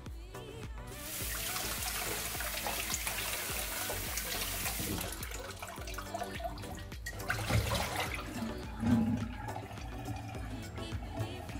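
Water splashing and pouring as a metal mesh strainer of washed apples is lifted out of a glass bowl of water and drains back into it, with background music. A few knocks follow, the loudest about nine seconds in, as the glass bowl is handled in the stainless steel sink.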